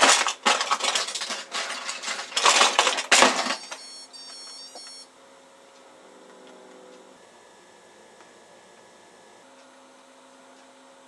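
Loud rustling and clattering, like a hand rummaging through a plastic drawer unit, for about three and a half seconds. Then about a second of high-pitched chirping tones, and after that a faint steady hum.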